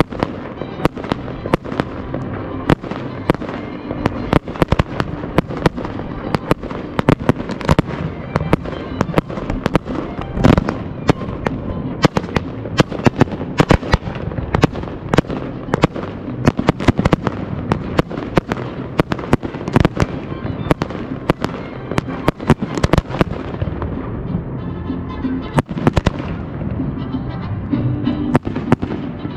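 Professional display fireworks going off in a dense, continuous barrage: sharp aerial bursts and bangs several a second, with one heavier boom about ten seconds in, over music.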